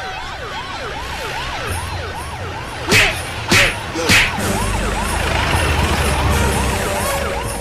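Police siren wailing in a fast rise-and-fall, about three cycles a second. Three sharp whacks cut through it about three to four seconds in.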